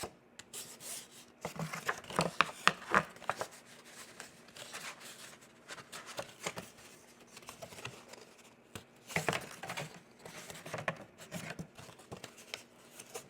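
Cardstock being folded along its score lines and handled: irregular creasing, crinkling and rustling with small clicks, busiest about two to three seconds in and again around nine to ten seconds.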